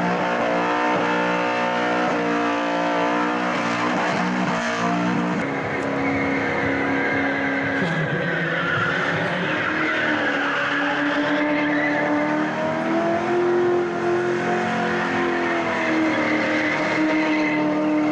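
Car engines held at high revs during burnouts, with the spinning rear tyres squealing on the pavement. The engine note stays high and fairly steady, and changes about five seconds in as a different car takes over.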